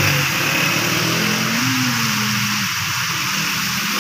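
Small motorcycle engine running as the bike rides through rainwater flowing across the road; its pitch rises, then falls and fades about two and a half seconds in. A steady hiss of rain and running water carries on throughout.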